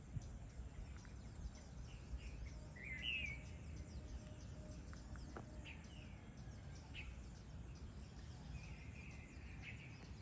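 Outdoor ambience of scattered short bird chirps and calls, the loudest about three seconds in, over a faint steady background with a low rumble.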